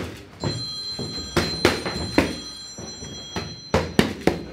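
Boxing gloves landing punches on leather focus mitts: about seven sharp smacks in an uneven string, the hardest near the end. A steady high ringing tone sounds behind the first couple of seconds.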